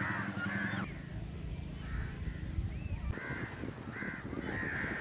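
Crows cawing repeatedly in a series of short calls, thinning out for a couple of seconds about a second in, then coming thick again.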